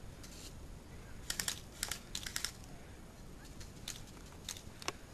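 Airsoft guns firing: sharp snapping clicks, some single and some in quick bursts of three or four.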